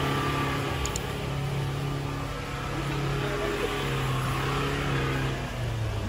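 Pickup truck engine running steadily, its pitch dropping slightly about five and a half seconds in.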